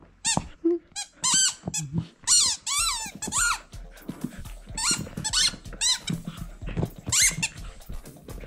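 Yellow rubber chicken squeaker toy squeaking over and over as a husky bites and chews it: about a dozen short, high-pitched squeals at an irregular pace.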